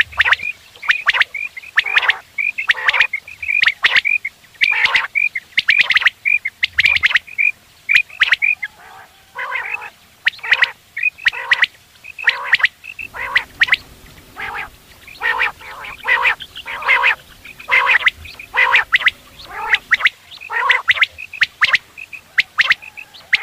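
Common quail calling over and over: a steady string of short, harsh notes mixed with quick, clear whistled notes.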